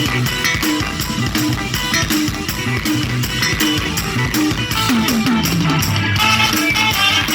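Live Isan band music with no singing: a drum kit keeps an even beat under a moving bass line and electric guitar, played loud through the truck's sound system.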